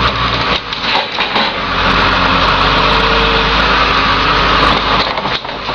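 Diesel engine of a John Deere wheel loader running hard as its forks shove a pickup onto a stack of cars in a car crusher, with a few short clunks about a second in and again near the end.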